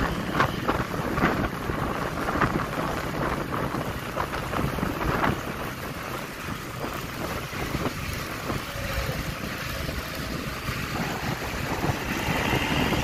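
Wind rushing and rumbling over the microphone of a camera on a moving motorcycle, with road noise underneath and uneven gusts.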